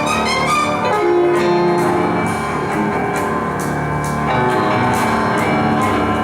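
Piano and pops-symphonic orchestra playing a light concert piece, with a quick run of notes near the start over a steady beat.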